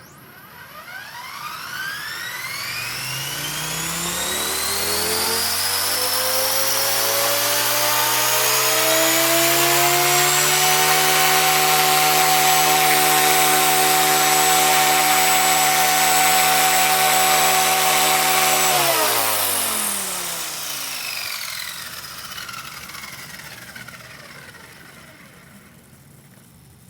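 Blade 180 CFX electric RC helicopter spooling up: the whine of its brushless motor and rotors rises steadily in pitch for about ten seconds, holds steady at head speed for about eight seconds, then falls away as the rotors wind down to a stop.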